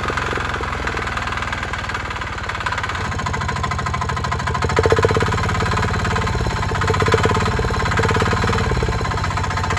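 Single-cylinder diesel engine of a walk-behind tractor running steadily, its exhaust pulses blowing into an aluminium drink can hung on a wire in front of the exhaust outlet. The exhaust note changes about three seconds in and gets a little louder around halfway.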